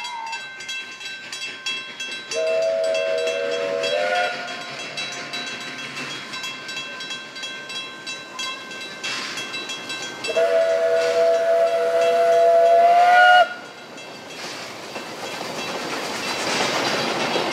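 Ex-South African Railways NG/G16 Beyer-Garratt steam locomotive NG129 sounding its chime whistle twice, a short blast and then a longer, louder one of about three seconds, over steadily ringing level-crossing bells. Near the end a rising rush of steam and train noise builds as the locomotive comes through the crossing.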